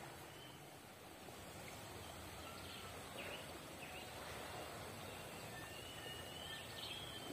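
Faint outdoor background with birds calling: scattered short, high whistled chirps, coming more often near the end.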